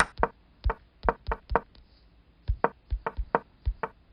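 Chess move sound effects: a rapid run of short wooden knocks as a game's moves are stepped through quickly. There are two flurries of strikes with a pause of about a second between them.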